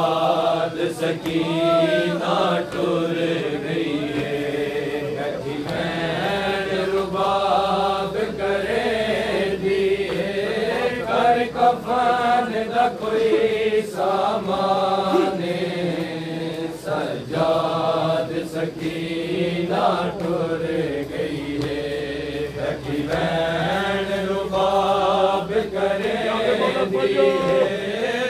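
Group of men's voices chanting a noha, a mourning lament, together in a slow, wavering melody, over a steady beat of open-hand chest-beating (matam) slaps.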